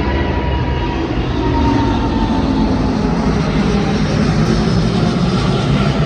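Jet airliner departing, its engines at takeoff power: a loud, steady roar with a faint whine running through it.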